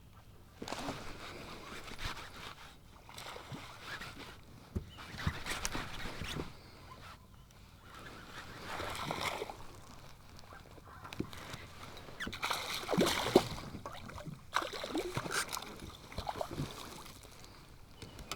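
Irregular water splashing and sloshing around a kayak, broken by sharp knocks and handling noises.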